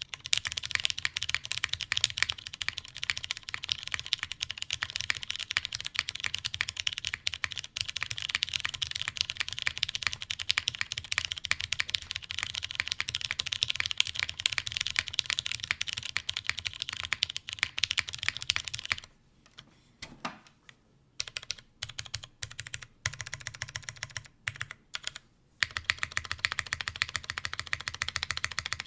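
Fast continuous typing on a top-mounted Zekk.works RBB mechanical keyboard with Cherry MX Brown tactile switches, a 2 mm polycarbonate plate and GMK keycaps. About two-thirds of the way through, the typing thins to scattered single keystrokes for several seconds, then picks up fast again.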